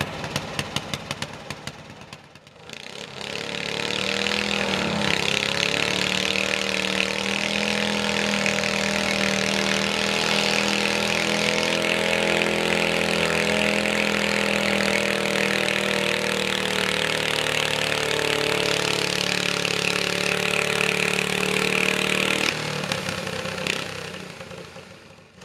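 Garden tractor engine run hard under load while dragging a weight-transfer pulling sled: a loud, steady drone for about twenty seconds, falling away about three seconds before the end as the throttle comes off at the end of the pull. It is preceded by a couple of seconds of an engine idling and fading out.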